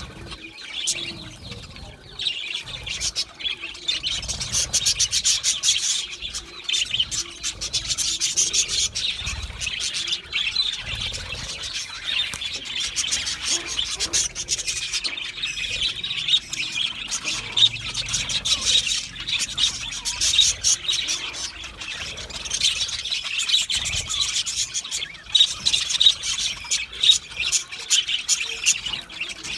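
Budgerigars chirping and warbling continuously: a dense, scratchy chatter of quick high notes and clicks.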